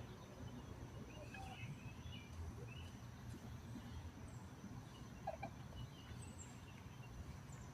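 Quiet outdoor ambience with a low background hum and faint, scattered short bird chirps.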